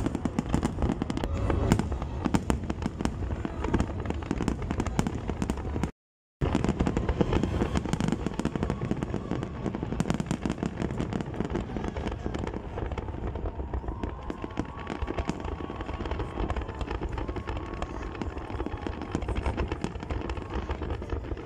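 Fireworks display: a dense, irregular run of bangs and crackling bursts over a low rumble, with a brief silent break about six seconds in.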